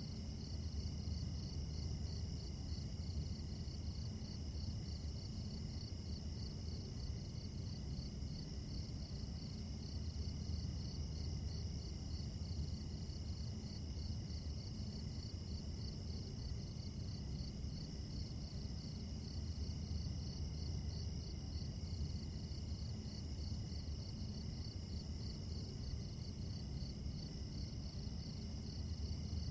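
Night crickets and other insects chirping steadily: a fast, even pulsing trill over steady high tones, with a constant low rumble underneath.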